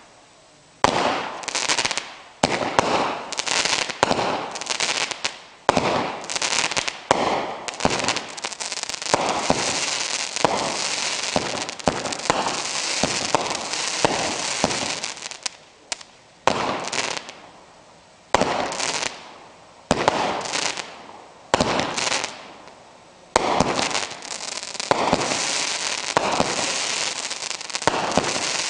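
A 25-shot consumer firework cake firing shot after shot. Each shot gives a sharp pop and a burst, followed by the dense crackle of crackling stars, and through long stretches the crackle runs almost unbroken.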